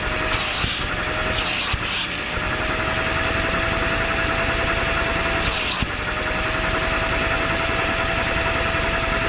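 A motor running steadily with a constant hum. Its pitch sags briefly several times, each time with a short burst of hiss, about a second in and again near the two-thirds point.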